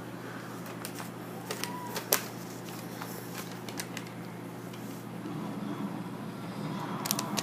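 A sheet of paper being folded and creased by hand: scattered light crackles and taps over a steady low hum.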